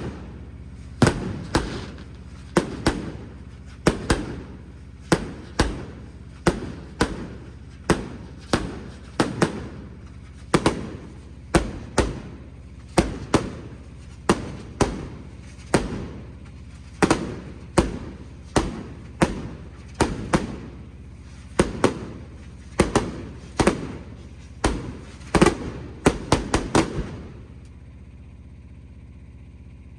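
Fireworks bursting overhead in a rapid series of sharp bangs, one or two a second, each trailing off in a short echo, until the bangs stop a few seconds before the end.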